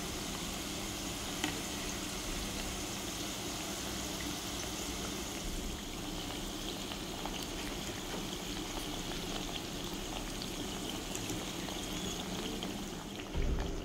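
Cartellate and almond panzerottini deep-frying in seed oil in a pan: the oil bubbles and sizzles steadily with fine crackles around the dough. A single sharp click comes about a second and a half in, and a low thump near the end.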